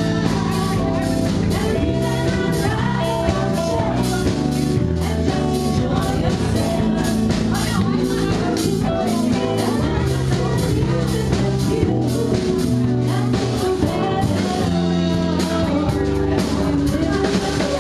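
Live band playing with a steady drum beat: a woman singing over acoustic and electric guitars, bass and a drum kit.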